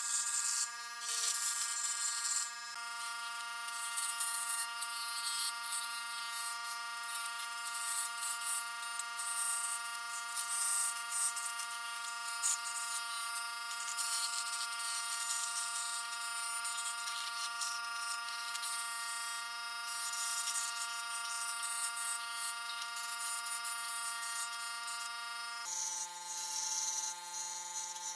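Scroll saw running and cutting through a wooden stencil blank: a steady buzzing hum with the rough rasp of the blade in the wood. Near the end the hum drops to a lower pitch.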